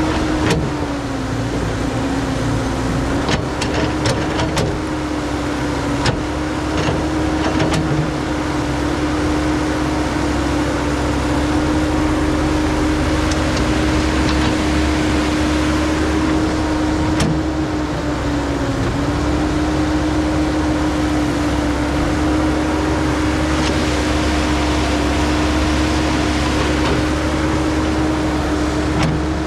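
Caterpillar 312 hydraulic excavator's diesel engine running steadily while it digs. The engine note sags briefly twice as the hydraulics take load. A few scattered knocks of rock and bucket come in the first third.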